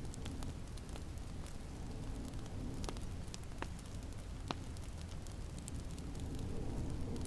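Wood fire crackling in a fireplace, with scattered small ticks and a few sharper pops around the middle, over a steady low rumble of snowstorm wind.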